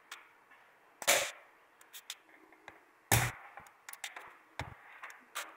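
A few sharp knocks and small clicks as plastic LCD drawing tablets and a stylus are handled and set down on a table. The loudest knock comes just after three seconds, with others about a second in and near the end.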